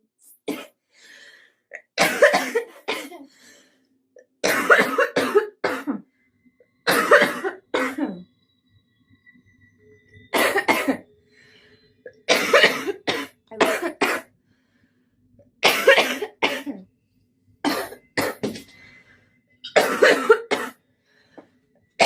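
A young woman coughing in about ten bouts of two or three harsh coughs each, a second or two apart: her smoker's cough, by her own account.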